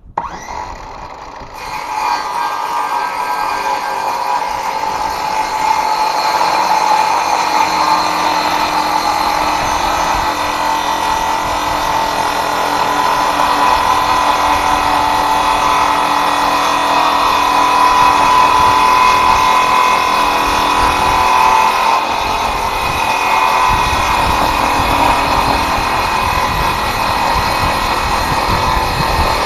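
Ridgid circular saw starting up and running steadily through a long cut in wood, with a high motor whine.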